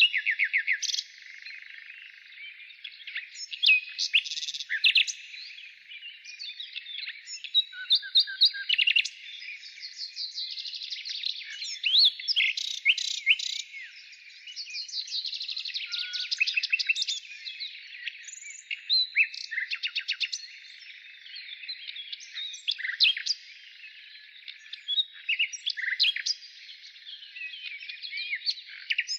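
Birds chirping and singing, many short sharp chirps and fast trills overlapping in a busy chorus.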